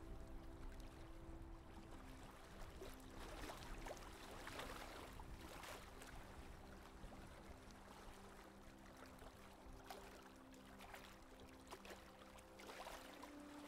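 Faint wash of water along a sailboat's hull as it runs downwind, swelling and easing every second or two. Soft held music notes sit underneath.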